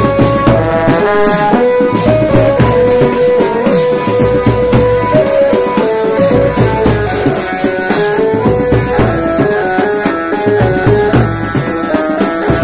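Music: a stepping melody over a steady hand-drum beat.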